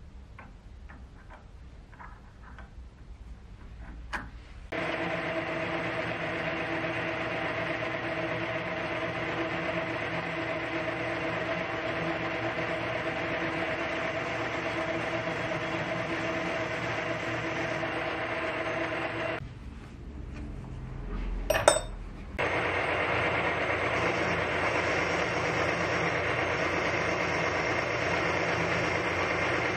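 Light clicks of metal parts being handled, then about five seconds in a metal lathe runs steadily with a humming tone while a boring bar cuts aluminium inside the bore. It breaks off briefly with a sharp clink, then resumes slightly louder as a parting tool cuts through the aluminium.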